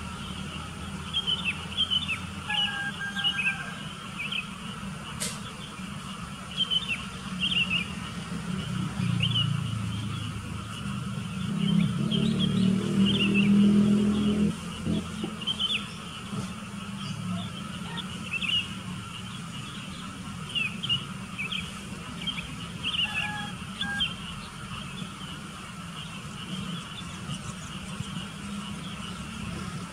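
Sooty-headed bulbuls giving many short, quick chirps throughout. A passing vehicle's low rumble swells up and is the loudest sound about halfway through.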